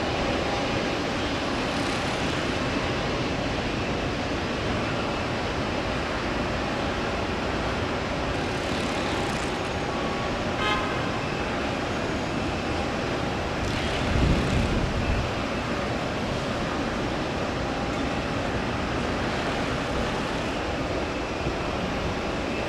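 Steady road traffic and airport noise, with a brief tone about ten seconds in and a louder low rumble of a passing vehicle around fourteen seconds.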